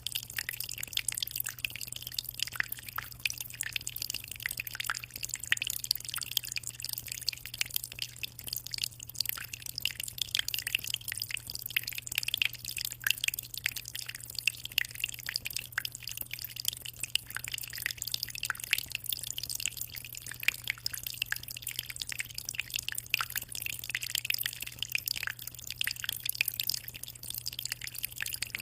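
Aquarium water trickling and splashing steadily, a dense run of small drips and splashes with a constant low hum underneath.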